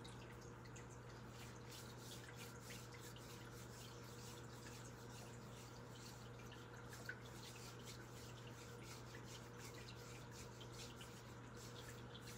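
Faint running tap water and dripping in a sink during hand washing, with a steady low hum underneath.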